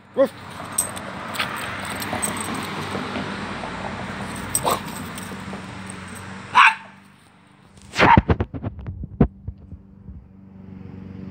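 Small dog barking during a game of fetch: one short bark right at the start and a louder one a little past halfway, with rushing noise in between. Near the end comes a quick run of about ten sharp knocks in a second and a half.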